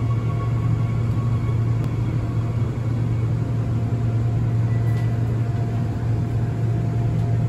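Inside a Seoul Line 9 subway car pulling in and standing at a station platform: a steady low hum of the train, with faint thin whines that fade.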